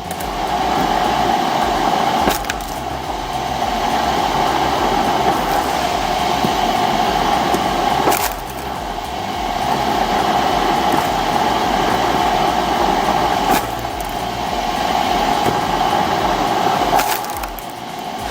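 Homemade log splitter at work: its motor running with a steady whine while wood cracks and splits under it.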